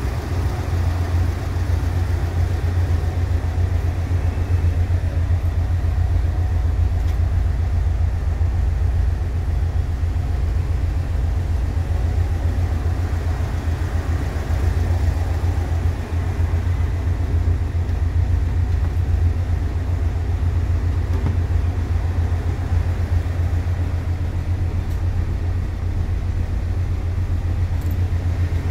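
Volkswagen Bus engine idling steadily: an even, low-pitched running with a fine regular pulse that holds unchanged throughout.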